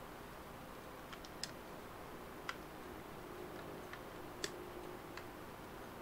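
Plastic keycaps being pressed onto the mechanical switches of a small macropad: a handful of short, sharp plastic clicks at uneven intervals, two of them louder than the rest.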